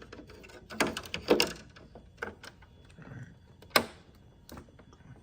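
A scattering of sharp clicks and knocks: the plastic filter and front panel of a GE window air conditioner being handled.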